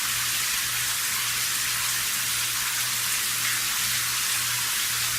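Steady, even hiss of spraying or running water, with a low steady hum underneath.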